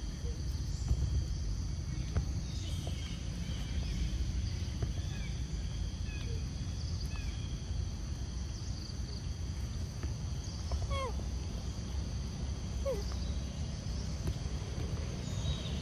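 Steady outdoor ambience: a constant low rumble under a steady high hum, with a few short calls falling in pitch, two of them clearer, past the middle.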